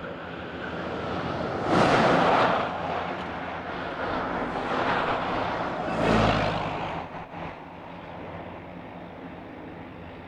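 Airbus A400M Atlas's four TP400-D6 turboprop engines running with propellers turning while lined up on the runway before the takeoff roll: a steady drone with even low tones that swells loudly twice, about two and six seconds in.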